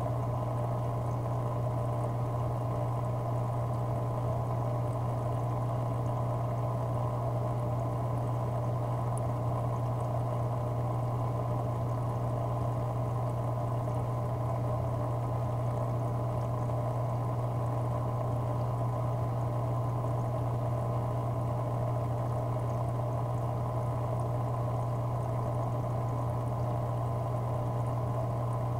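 Aquarium pump running with a steady low hum and a constant trickle of moving water.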